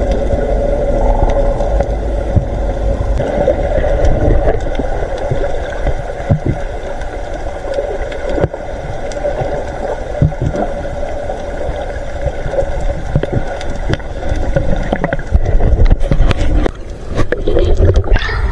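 A boat's engine running steadily, heard through the water by an underwater camera. Splashing and bubbling grow louder near the end.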